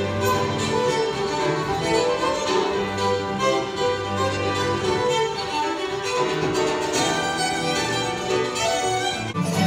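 Fiddle playing a tune live on stage, with piano accompaniment.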